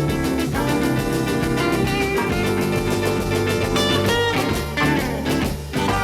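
Blues record playing an instrumental passage: guitar over bass and drums, with no vocals.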